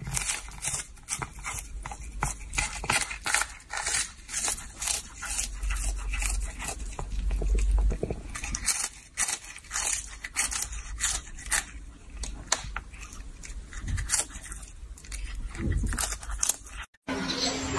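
A cat chewing a hard dried treat, with irregular crisp crunches throughout that stop abruptly a second before the end.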